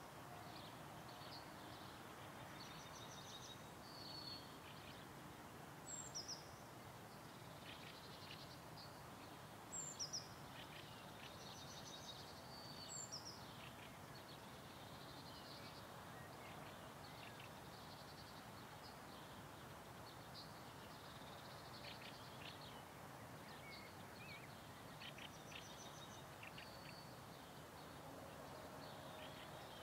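Quiet ambience of birds chirping and calling, with a few sharper, louder calls standing out in the first half, over faint steady background noise.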